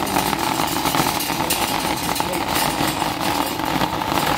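Wire shopping cart being pushed over asphalt with a rider in it, its wheels and metal basket rattling steadily.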